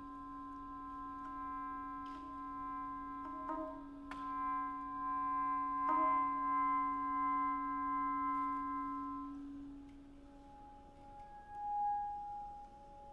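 Chamber ensemble of saxophone, clarinet, strings and piano playing slow contemporary music: a low note held under several long higher notes, with a few short sharp attacks. About ten seconds in the chord fades and a single quieter note remains.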